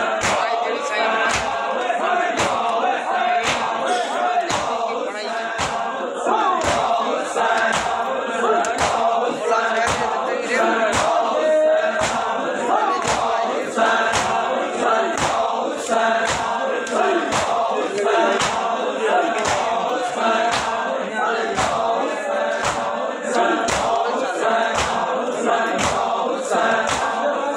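A crowd of men chanting a noha, a Shia mourning lament, in unison, with many hands slapping bare chests together in matam at a steady beat of about three strikes every two seconds.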